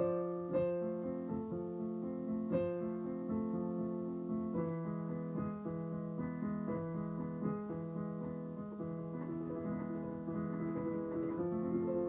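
Digital piano playing slow, sustained chords over low bass notes, with a few sharper struck notes standing out in the first three seconds.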